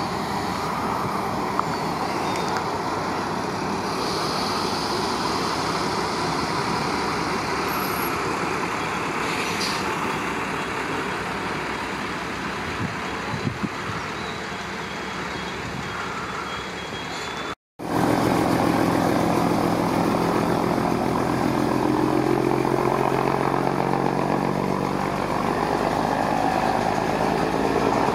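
Yellow railway service railcars on the track: for most of the first part a steady rumble of one running along the rails, then, after an abrupt cut, a diesel railcar approaching with a steady, louder engine note.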